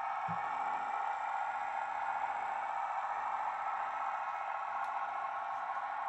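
Sound-fitted OO gauge model of a Class 158 diesel multiple unit playing its recorded diesel engine sound through its small speaker: a steady drone that does not change. A brief low thud comes about a third of a second in.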